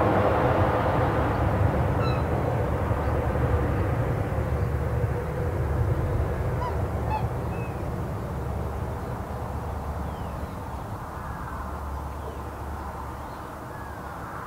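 Steady rush of highway traffic, loudest at the start and slowly fading, with a few short, faint, high honking calls from waterbirds over it: one about two seconds in, a few more midway, and some rising and falling calls near the end.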